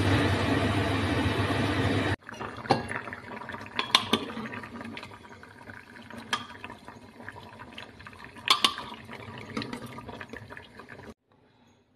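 A loud, steady rushing hiss for the first two seconds, which fits an aluminium pressure cooker venting steam on the stove; it cuts off suddenly. Then a metal ladle scrapes and clinks against the inside of the opened cooker while stirring thick masala gravy with fritters, with a few sharper clinks, before it goes quiet near the end.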